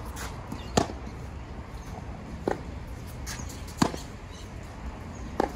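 Tennis ball struck back and forth in a rally: two loud, sharp racquet hits from the near player, about a second in and near four seconds, with fainter hits from the far side of the court between them.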